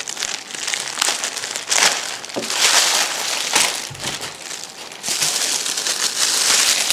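Plastic garment packaging crinkling and rustling as it is opened and pulled apart by hand, in uneven bursts with a short lull about four seconds in.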